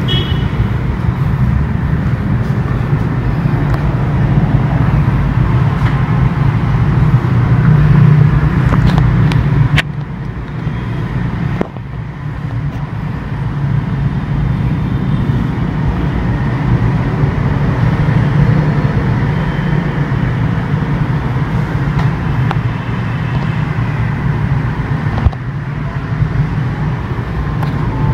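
Loud steady low rumble, with a sharp click about ten seconds in and another near the end.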